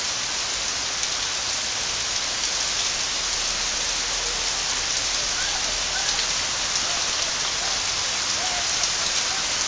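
Heavy rain falling steadily on paving, grass and trees.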